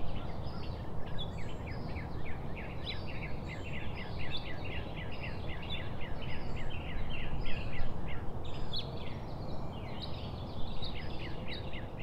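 A flock of birds chattering, many short calls overlapping in quick succession, over a steady low background rumble.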